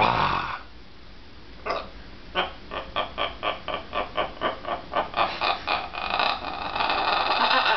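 Blue-and-gold macaw vocalising: a short call at the start, then a fast run of clucking pulses, about four a second, that run together into one continuous grating sound for the last two and a half seconds.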